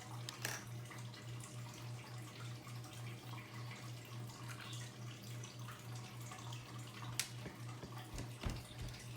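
Play-Doh and its plastic tools being handled on a table: scattered small clicks and taps, a couple sharper than the rest near the end, over a steady low hum.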